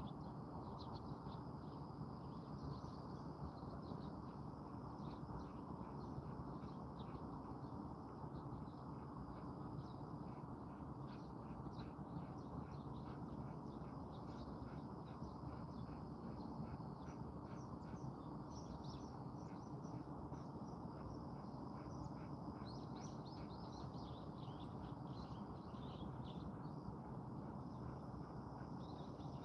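Small birds chirping in quick series of short high notes, with some falling calls in the latter part, over a steady low background rumble.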